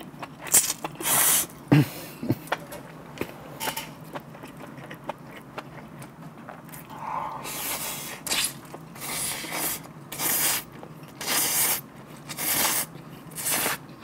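Ramen noodles slurped by mouth in a run of short, hissing sucks, a few at the start and then about one a second through the second half, with quieter chewing between.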